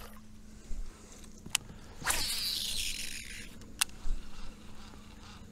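Fishing rod cast: a fishing reel's spool whirs as line pays out for about a second, about two seconds in, its pitch falling as the spool slows. There is a sharp click before it and another after it.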